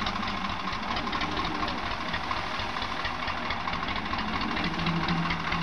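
Diesel farm tractor engine running steadily at low speed with a regular knocking throb, growing a little louder near the end as the tractor comes closer.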